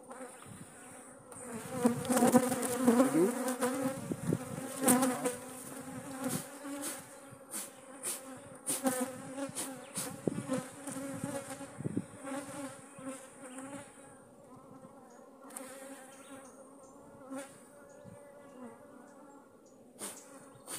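A cloud of angry honeybees buzzing around an opened hive: a defensive colony disturbed while its honey frames are taken. The buzz is loudest a couple of seconds in and eases off later, with a few sharp clicks along the way.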